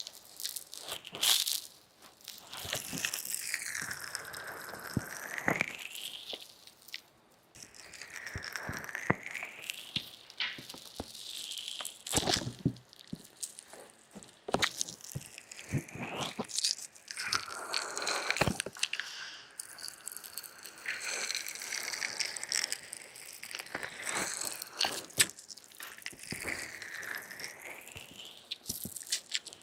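Ear-massage ASMR on a binaural microphone: hands rubbing, pressing and cupping over the mic's ears, giving crunchy rubbing and rustling with swishes that sweep up and down in pitch, broken by a short pause about seven seconds in.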